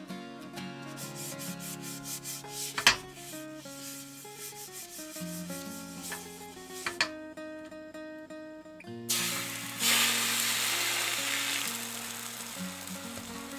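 A pastry brush rubs oil across a hot nonstick tamagoyaki pan in repeated scratchy strokes, with one sharp knock about three seconds in. About nine seconds in, beaten egg mixture hits the hot oiled pan and sizzles loudly, the sizzle slowly dying down. Soft guitar music plays underneath.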